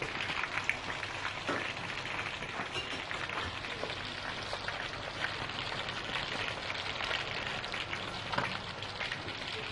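Whole steamed chicken (degi chargha) frying in hot oil: a steady sizzle with scattered crackles and pops, as the second side fries to golden brown.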